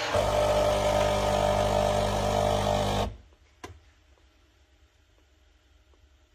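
Krups Evidence bean-to-cup coffee machine running loudly with a steady motor hum, which stops suddenly about three seconds in. A single sharp click follows, then a few faint ticks.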